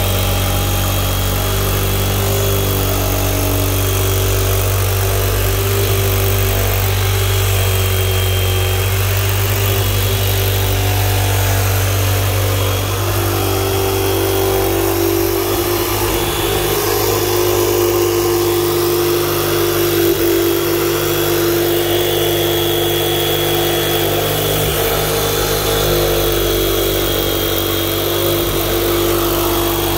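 Porter-Cable corded jigsaw running continuously as its blade cuts around the top of a 55-gallon plastic drum, its pitch shifting a little about halfway through.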